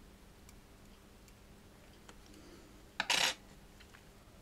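A brief metallic clatter about three seconds in, a small metal watchmaking tool or part set down on the workbench, with a few faint clicks of handling before it.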